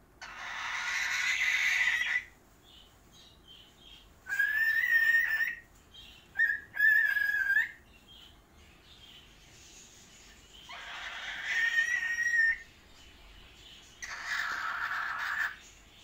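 Pet cockatiels whistling and calling in a string of short phrases with pauses between: some clear whistled notes, others scratchier.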